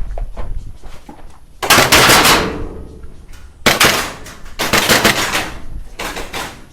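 Airsoft guns firing four bursts of rapid full-auto fire, the first and longest lasting about a second, starting about a second and a half in.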